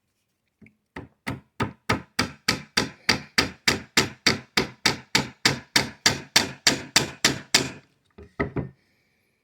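Hammer tapping a roll-pin punch about three times a second, driving the bolt catch roll pin into an AR-15 lower receiver, with two lighter taps near the end. The taps start the pin going into its hole.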